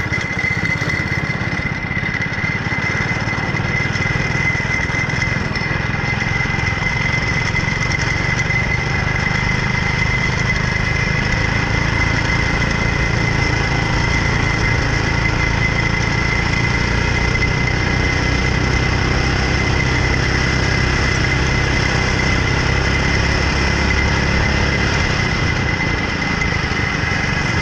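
Go-kart's small petrol engine running steadily while the kart is driven, with a constant high whine over the drone.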